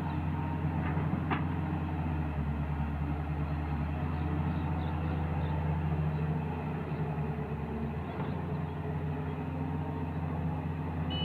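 Diesel engine of a Doosan wheeled excavator running steadily while it digs and swings a load of soil, with one sharp knock about a second in.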